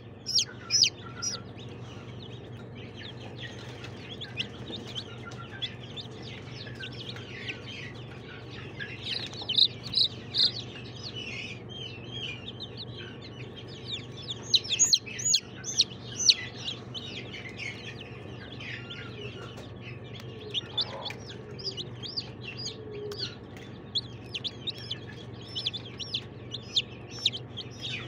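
A brood of young chicks peeping: many short, high cheeps in quick flurries, busiest around ten and fifteen seconds in, over a steady low hum.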